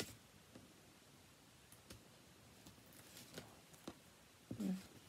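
Quiet handling of a cardstock envelope on a craft mat: a few soft clicks and taps of paper, with a louder short paper sound near the end.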